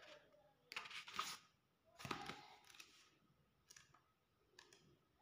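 Pages of a softcover comic book being turned by hand: two short papery rustles about a second apart, then a couple of faint ticks.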